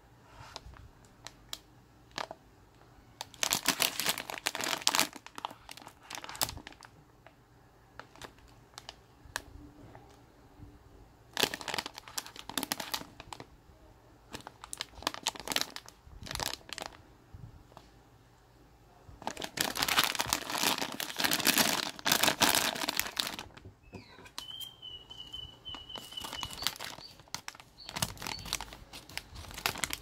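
Crinkling plastic wrapping of Honees honey menthol cough drops being handled and torn open, in several bursts with quiet pauses between. A short, steady high whistle sounds about three-quarters of the way through.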